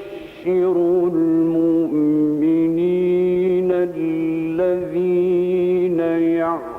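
A man's voice reciting the Quran in a slow, melodic chant. He holds long, drawn-out notes at a steady pitch with small ornamental turns, pausing briefly between phrases.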